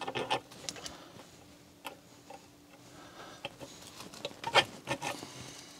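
Light clicks and knocks of metal parts being handled and set into place on the grinder's base casting, with the sharpest knock about two-thirds of the way through.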